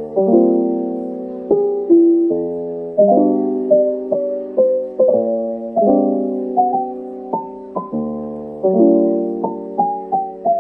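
Background music: a piano playing slow chords, each struck and left to fade.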